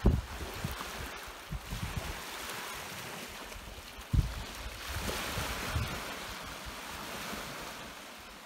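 Steady rushing of wind and lake water on a stony shore, with a few dull low thumps, the loudest about four seconds in.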